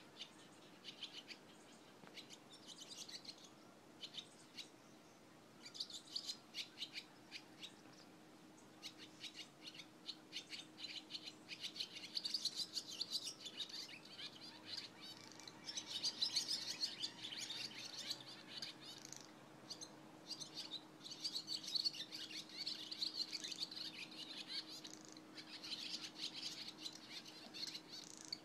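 Barn swallows twittering: runs of rapid chirps and chatter, sparse at first and busier and louder from about twelve seconds in.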